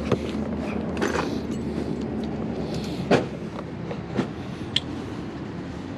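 Steady low rumble with about five sharp knocks and clanks scattered through it, the loudest about three seconds in.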